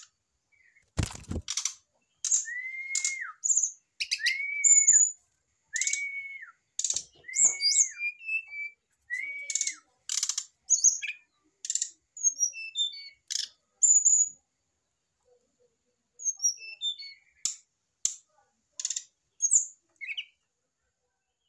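Brown-chested jungle flycatcher calling: five short clear whistles that rise, hold and drop off, spaced about one and a half to two seconds apart, mixed with many sharp clicks and thin high chips. One sharp knock about a second in.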